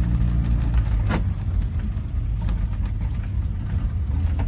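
Car engine running steadily, heard from inside the cabin, with a few sharp clicks on top, the loudest about a second in.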